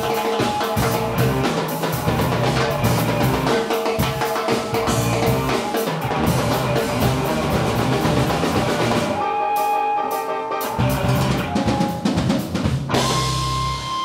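Live band with drum kit, electric guitar and keyboards playing an instrumental number. The drums and bass drop out for a moment about nine seconds in, and the piece closes on a held chord near the end.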